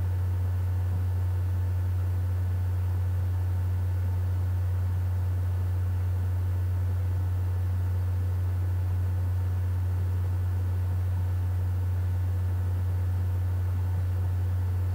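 Steady low hum at a constant pitch, with a faint hiss underneath.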